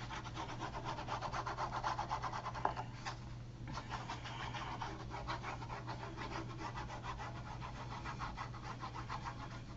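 A glue stick rubbed in strokes along the edges of a sheet of card, a continuous dry rubbing with a short break about three seconds in.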